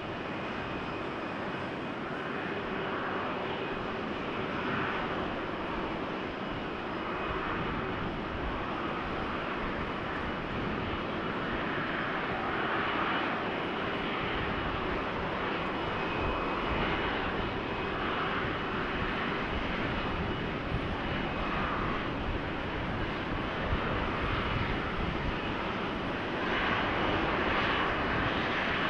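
Airbus A330-200 freighter's jet engines running steadily at low thrust while it taxis: a continuous rushing noise with a faint high whine, swelling slightly near the end.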